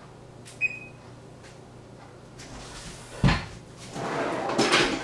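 Kitchen handling noises: a short clink with a brief ring about half a second in, a thud a little after three seconds, then about a second of scraping and rustling.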